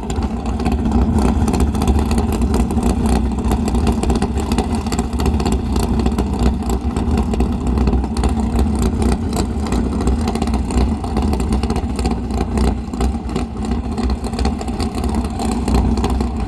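A 1988 Chevrolet Camaro land-speed race car's engine running loud and steady close by, holding an even pitch without revving up.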